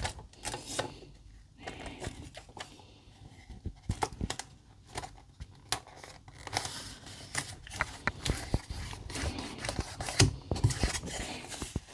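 Close-up handling of a sticker and its paper backing on a small polystyrene model board: irregular small clicks, scrapes and crinkles as it is pressed and rubbed down.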